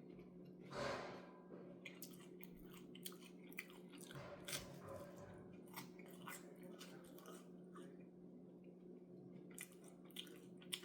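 A person chewing and biting toast close to the microphone: faint, irregular crunching clicks, with a louder half-second noise about a second in, over a steady low electrical hum.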